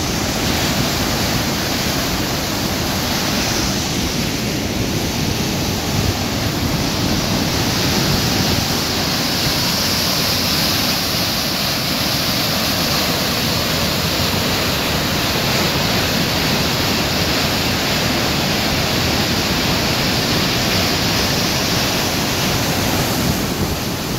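Whitewater of the Merced River rushing down a narrow granite chute: a loud, steady rush of falling water that does not let up.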